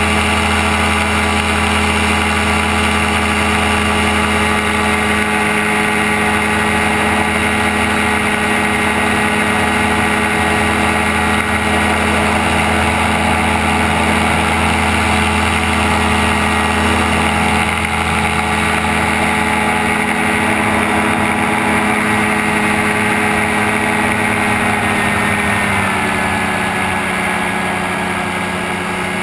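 Gyrocopter engine and pusher propeller running steadily in flight, heard from the pilot's open seat. Near the end the engine note drops slightly.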